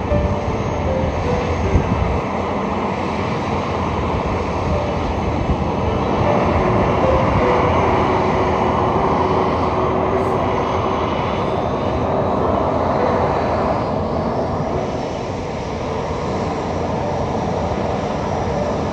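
Jet airliner engines running, a steady loud noise with faint whining tones and a faint rising whine about twelve seconds in.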